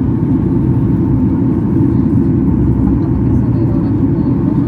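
Steady jet engine and airflow noise heard inside the cabin of a Boeing 737-800 airliner in flight: a loud, even rumble with a faint steady hum above it.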